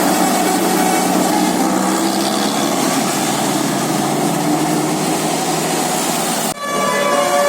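Bus engine running steadily with a low drone and a lot of noise. About six and a half seconds in, the sound cuts abruptly and a bus's multi-tone telolet horn starts playing a melody of shifting notes.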